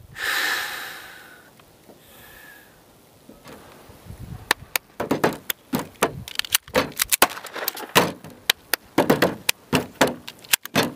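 A rush of noise in the first second that fades away, then from about four and a half seconds in a quick, uneven series of sharp clicks and knocks as a handgun is handled in both hands over a table.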